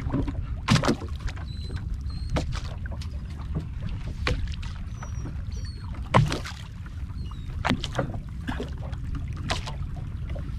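Low wind rumble on the microphone with water sloshing, broken by sharp knocks every second or two. A few faint, short high chirps come in around two seconds and five seconds in.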